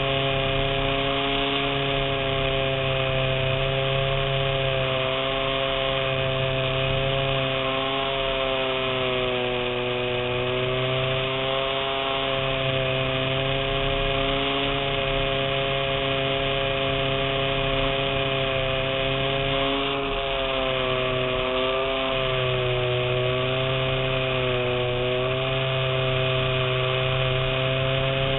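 Electric RC model airplane's motor and propeller whining steadily in flight, the pitch sagging and rising a few times, under a constant rush of wind over the onboard camera.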